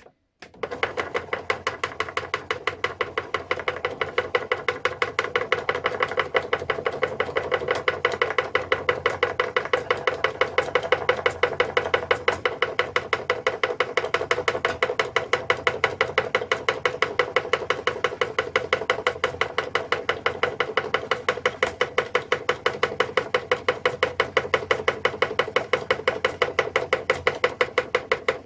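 Homemade machine driven by a washing-machine motor running, with a rapid, perfectly even clicking of about five a second over a steady tone; it starts about half a second in.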